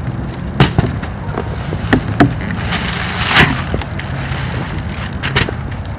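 Cardboard shipping box and packing material being handled and pulled out: a string of sharp knocks and scrapes, with a louder rasp about three and a half seconds in.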